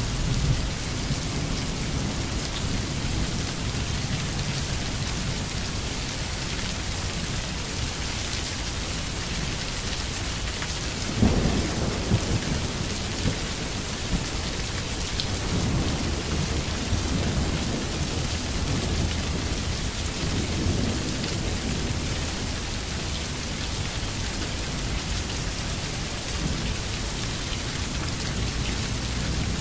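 Steady rain with low rolling thunder, and a sudden louder thunderclap about eleven seconds in.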